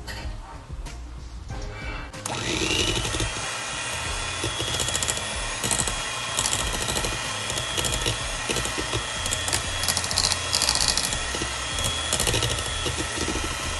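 An electric stand mixer switches on about two seconds in. Its motor whine glides up briefly, then runs steadily with a rapid clatter as the beater churns thick frosting in a metal bowl.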